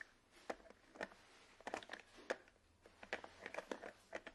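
Large plastic toy building blocks clicking and knocking as a toddler handles and stacks them: faint, irregular sharp clicks, one to a few a second.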